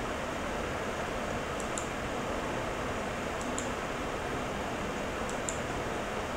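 Steady background hiss with faint computer mouse clicks, coming in quick pairs about every two seconds, three times.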